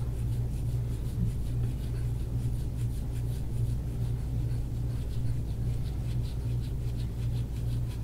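A smooth-edged scraping tool drawn over skin in repeated short, scratchy strokes during instrument-assisted soft-tissue work. A steady low hum runs underneath.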